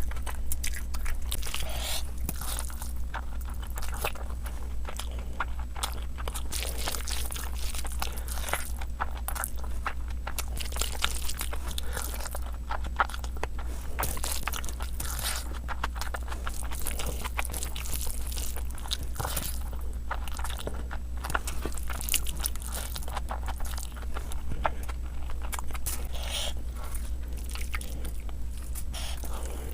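Close-miked eating: a person chewing and biting food, with dense, irregular wet clicks and crunches, over a steady low electrical hum.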